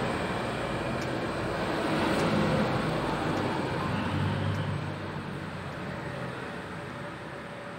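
Steady background rumble, a low hum under a noisy haze, easing off over the last couple of seconds.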